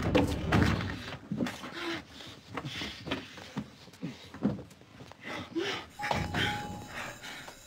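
A man and a woman kissing passionately, breathing hard with short moans, while their bodies bump and thump against the elevator's door frame and wall.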